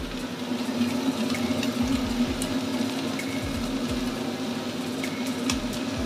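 Steady motor hum of a kitchen range hood fan, with a light hiss and a few faint ticks from cabbage stir-frying in a frying pan.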